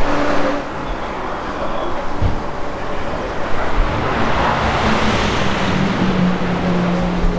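Road traffic: a car passing, its engine and tyre noise swelling and fading about four to five seconds in, over a steady low engine hum.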